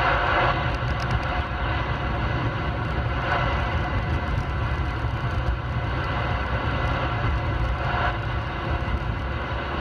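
Steady hiss of CB radio static between transmissions over the low, even road and tyre rumble of a 2013 Ford Fusion S driving, heard inside the car.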